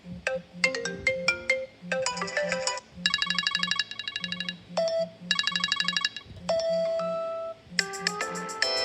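Smartphone ringtones playing: short electronic melodies of quick repeated chiming notes, with a long held tone a little past the middle and a denser cluster of notes near the end, over a low pulsing buzz.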